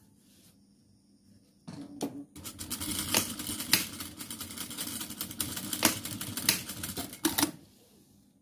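Sewing machine stitching through layered curtain fabric and tab: a short burst about two seconds in, then a steady run with a few sharp clicks, stopping near the end.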